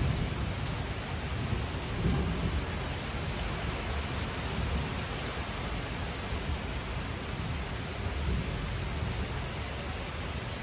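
Steady rain, a dense even hiss, over a low rumble that swells briefly near the start and again about two seconds in.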